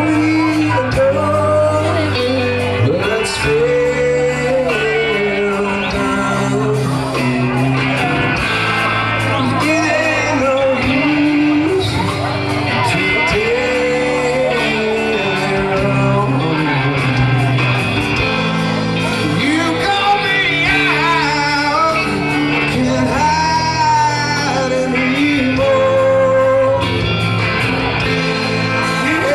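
Live rock band playing with electric guitars, bass and drums, a male lead singer belting the melody over them. Around two-thirds of the way through he holds long, wavering high notes.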